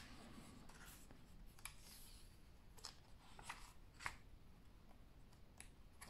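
Faint rustling and a handful of soft flicks and taps as the glossy pages of a thick hardcover comic omnibus are turned and smoothed flat by hand.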